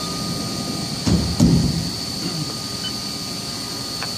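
CNC milling machine running steadily with a constant high whine. Two dull knocks come about a second in and a small click near the end.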